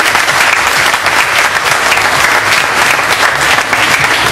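An audience applauding: many people clapping at once in a dense, even patter.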